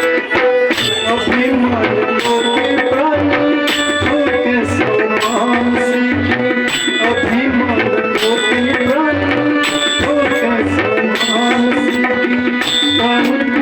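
Tabla accompanying a devotional bhajan, played in a steady rhythm, with a melody that wavers in pitch running over it.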